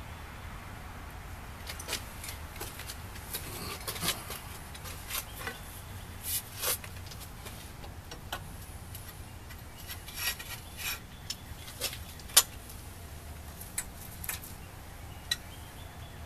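Irregular metal clinks and rattles of a wrench, nut and bolt against the steel frame of a broadfork as its wooden handles are bolted on. One sharp clink, about three-quarters of the way through, is louder than the rest.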